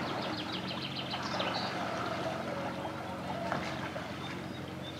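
A small canal boat's motor running steadily at low speed, a low even hum. Near the start there is a quick run of high ticks, about eight in a second and a half.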